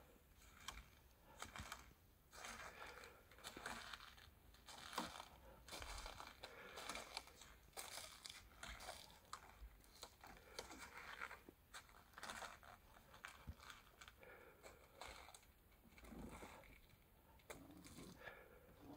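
Faint, irregular crunching footsteps of boots in snow and on the rungs of a wooden ladder.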